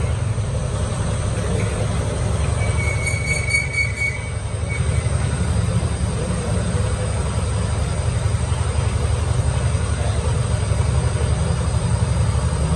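Workshop metal lathe running steadily, spinning a large truck rear-axle part, with a constant low hum. A brief high-pitched squeal sounds about three seconds in.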